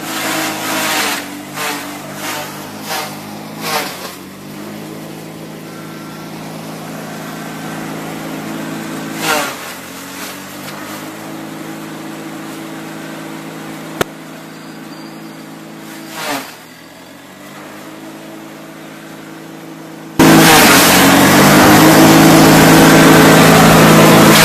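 Grass chopper (chaff cutter) running with a steady hum. In the first few seconds, and again about 9 and 16 seconds in, bursts of crackling come from stalks being chopped, and the motor's pitch dips under the load and then recovers. About 20 seconds in the sound jumps suddenly to a much louder, harsher machine noise.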